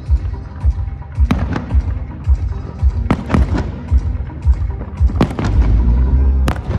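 Fireworks bursting with sharp bangs, several of them in quick pairs, over loud show music with a steady bass beat about twice a second.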